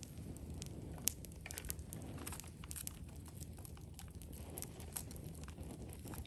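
Wood campfire crackling, with irregular sharp pops and ticks scattered over a steady low rumble; one of the louder pops comes about a second in.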